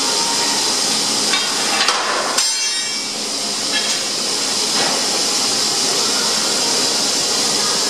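Automatic circular metal sawing machine running with a steady hiss. Metal knocks and clatter come about one and a half to two and a half seconds in and again near four seconds, as bar stock is handled on the loading rack.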